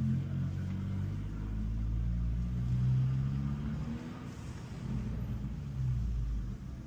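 Abarth 595 Competizione's 1.4-litre turbocharged four-cylinder running through its stock exhaust: a low rumble that swells to its loudest about three seconds in, then eases off.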